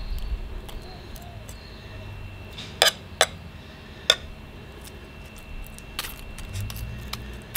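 Cutlery clinking against a plate four times, sharp and brief, as a meat pie is cut open.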